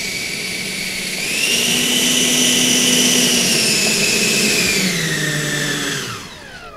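The 105 mm electric ducted fan of an RC jet, run on 8S, whining on the ground. It spins up about a second in, holds a steady high whine, then winds down near the end.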